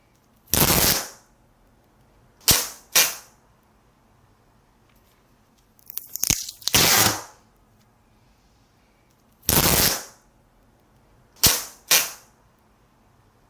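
Duct tape ripped in sharp bursts: a longer rip, then two quick short rips, and the pattern repeats, with a crackly stretch partway through.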